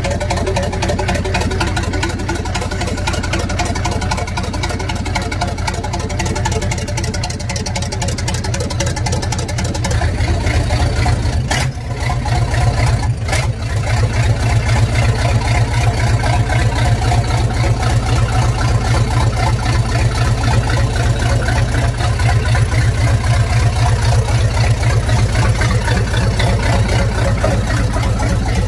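Nissan dumper truck's diesel engine running loudly with a fast, even pulse. It speeds up and gets louder about ten seconds in and again a few seconds later, then holds steady. Two short clicks sound in between.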